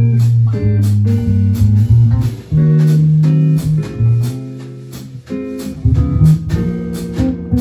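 Jazz quartet of vibraphone, electric bass, guitar and drums playing a jazz tune, the vibraphone struck with mallets over a walking bass line and cymbal time.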